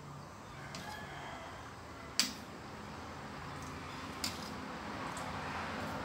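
Metal ladle clinking and scraping against a stainless steel wok while palm sugar lumps are stirred in water. A few sharp clinks, the loudest about two seconds in, over a steady hiss that slowly grows louder.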